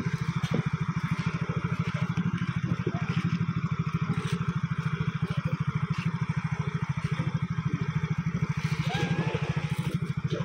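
Small portable generator's engine running steadily, a fast, even low chugging with no change in speed.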